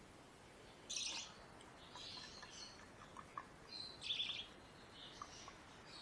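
Parakeet chick chirping: four short bouts of scratchy high calls, the loudest about a second in and about four seconds in.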